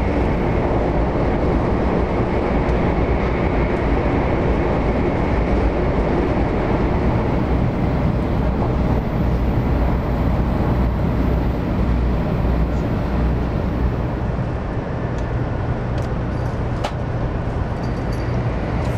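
Steady rumble and rushing noise of a Shinkansen 500 series bullet train running, heard from a window seat inside the passenger cabin.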